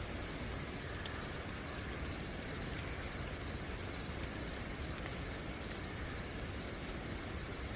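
Steady night rain hissing, with a continuous high-pitched cricket trill over it and a few faint ticks.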